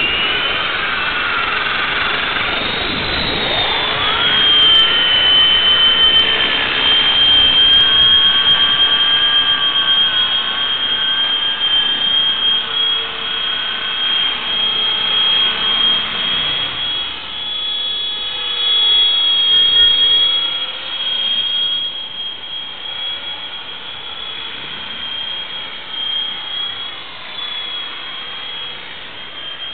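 EXI 450 electric RC helicopter spooling up, its motor and rotor whine rising in pitch over the first few seconds, then holding a steady high whine as it flies. It grows quieter in the second half as it moves farther away.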